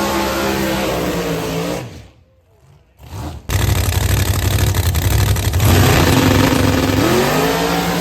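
Race car engines running hard under acceleration, their pitch climbing. About two seconds in the sound drops out for a moment, then comes back as a loud, rough rumble, and near the end another engine rises in pitch.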